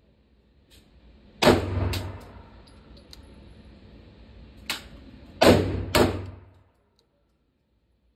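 Gunshots echoing in an indoor shooting range, each with a long ring-out. One loud shot comes about a second and a half in, a quieter one past the middle, then two loud shots about half a second apart.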